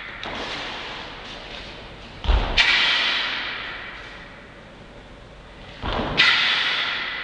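Taekwon-Do pattern movements: twice, a low thud of a foot setting down on the foam mats is followed a moment later by a sharp snap of the cotton uniform as the technique lands, each trailing off in the hall's echo. There is a softer movement sound just after the start.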